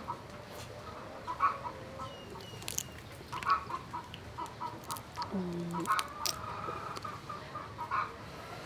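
Chickens clucking in short repeated notes in the background, with occasional sharp clicks and cracks of crab shell being broken apart and eaten.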